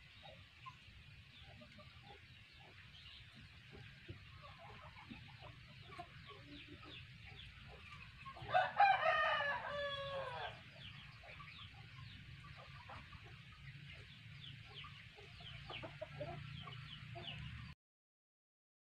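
A rooster crows once about halfway through, a single call of about two seconds that drops in pitch at the end, over faint high chirping in the background. The sound cuts off suddenly near the end.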